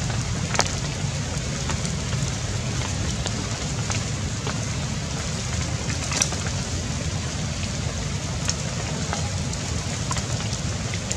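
Steady rushing background noise with a strong low rumble and a few scattered sharp clicks.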